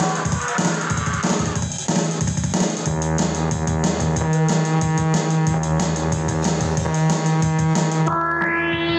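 Live band playing an instrumental passage: a drum kit keeps a steady beat under held bass and instrument notes. Near the end an electronic sweep rises steeply in pitch.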